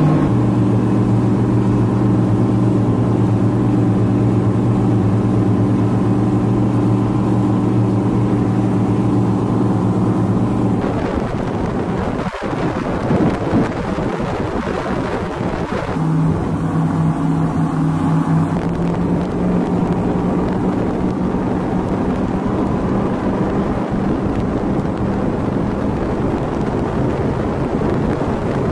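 A vehicle's engine running steadily, with wind on the microphone. About 11 seconds in the engine tone breaks up for a few seconds, then settles at a different pitch, and later gives way mostly to wind noise.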